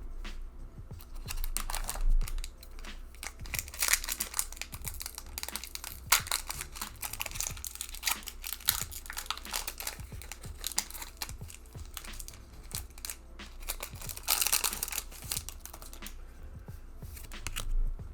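Foil booster-pack wrapper being torn open and crinkled, and trading cards being handled and slid against one another in quick, irregular rustles and clicks.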